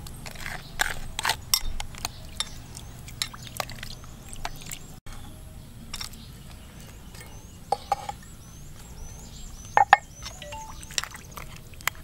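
A metal spoon clinking and scraping against a bowl while stirring a watery sauce, with liquid pouring and splashing into it at the start. The clinks come at irregular intervals, the loudest about ten seconds in, and a few faint high chirps are heard near the end.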